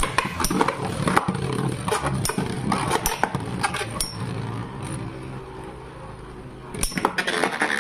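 Two metal-wheeled Metal Fusion Beyblades, Rock Leone and Gravity Destroyer, spinning in a plastic stadium: a steady whirring hum broken by repeated sharp clacks as they hit each other and the rim. The spinning goes steadier and quieter for a couple of seconds, then a burst of loud clacks comes near the end.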